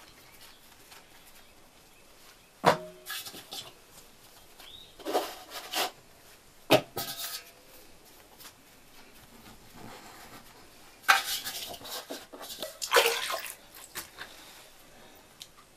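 Handling of a metal bread tray and a bowl of water while shaping dough: three sharp clanks spaced a few seconds apart, with short spells of rustling and a hand splashing in water.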